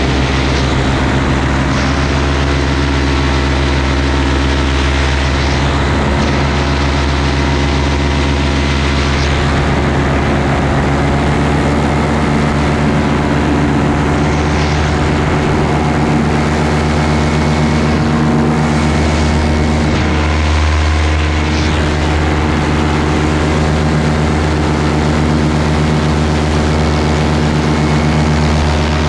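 Paramotor engine and propeller running steadily in cruise flight: a loud, constant-pitch drone with a rush of air over it.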